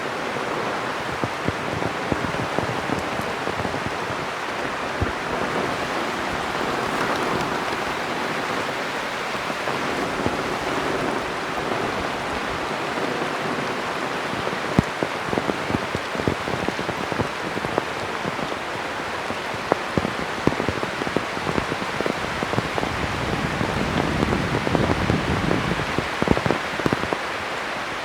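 Heavy rain falling steadily, with many individual drops striking close by. A low rumble swells near the end.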